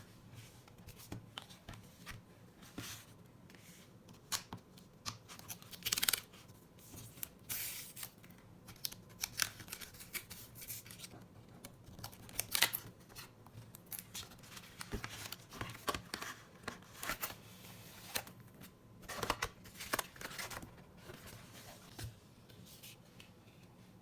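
Plastic packaging and screen-protector film rustling and crinkling as they are handled, in irregular sharp bursts.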